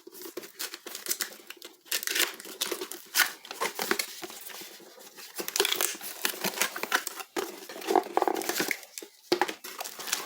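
Cardboard box and packaging being opened and handled: irregular crinkling and tearing with many small clicks and knocks.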